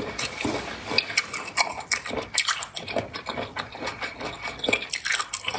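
A person chewing spicy seafood close to a clip-on microphone, mouth closed: a steady run of irregular small clicks and crunches.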